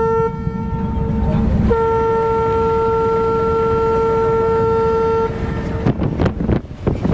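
A horn sounding on one steady pitch: it fades briefly, then sounds again for about three and a half seconds and stops about five seconds in. A low engine rumble runs underneath, and the end is rough rustling noise.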